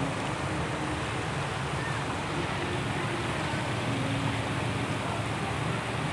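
Steady rushing outdoor background noise, even throughout, with no distinct events.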